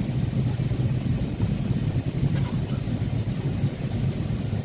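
Steady low cabin noise of a Boeing 767-432(ER) in flight, the engines and airflow heard from a window seat.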